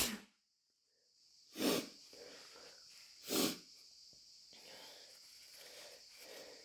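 A sneeze trailing off at the very start, then after a silent gap two short, sharp breaths through a congested nose about a second and a half apart, followed by faint breathing.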